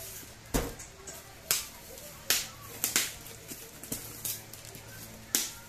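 Scissors cutting and packing tape tearing on a heavily taped cardboard box, in about six sharp snaps spaced irregularly. The first, about half a second in, is a heavier knock.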